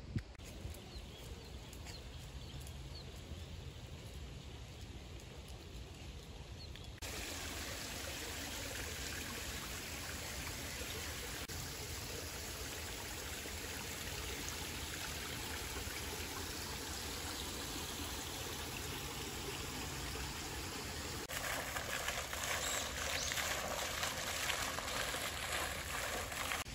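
Water trickling and spilling over a low stone weir in a small stream, a steady rush that starts abruptly about seven seconds in after quieter outdoor air. Near the end it changes to the brighter, hissier splashing of a floating pond fountain spraying.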